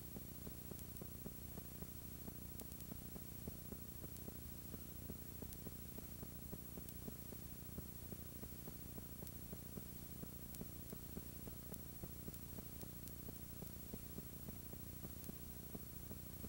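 Faint, steady static: a low hum under a light hiss with scattered small ticks, the sound of a blank, no-signal video feed showing snow.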